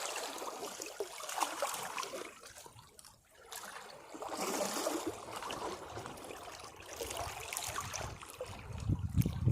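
Sea waves washing against rocks, the water sloshing and trickling back between them. The wash dies to a brief lull about three seconds in, then swells again, and a bigger, deeper wave surges in near the end.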